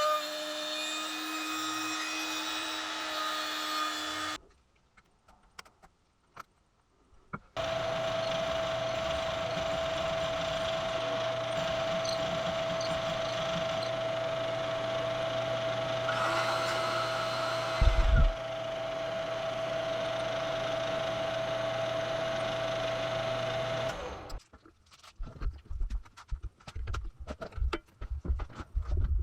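A power tool running with a steady whine, stopping after about four seconds, then starting again and running steadily for a long stretch before cutting off. Irregular low thumps follow near the end.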